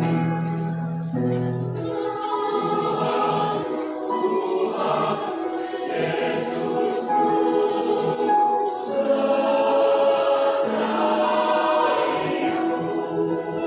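Mixed adult choir of women's and men's voices singing a sacred choral piece in several parts, holding chords with a few sharp 's' consonants, a little louder about two-thirds of the way through.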